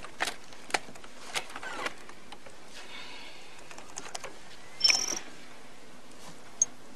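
Sparse keystrokes on a laptop keyboard, then a short electronic computer beep about five seconds in, and a high tick near the end as on-screen text begins to appear.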